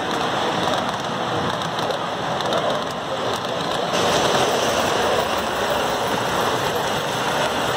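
Model trains running on a layout's track: a steady rushing rumble of wheels and motors, a little louder from about four seconds in.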